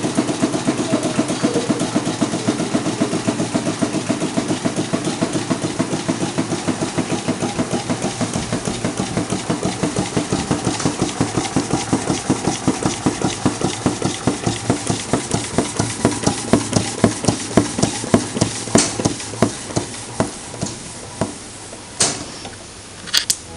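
Homemade two-cylinder gamma-configuration Stirling engine running with a steady, rhythmic knock from its pistons and linkages. The beat slows throughout as the engine runs down, and it coasts to a stop near the end with a last click or two.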